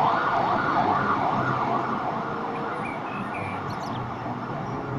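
Fire engine siren sweeping rapidly up and down, about twice a second, fading away over the first couple of seconds as the trucks pull off, with a fire truck's engine running underneath.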